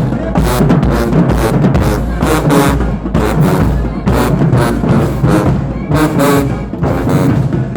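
Marching band playing loudly: brass section with pounding bass drums and snare drums.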